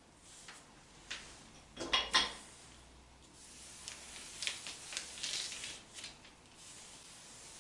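Marker pen rubbing in short scratchy strokes across a painted card board as letters are coloured in, with a louder stroke about two seconds in and another run of strokes a few seconds later.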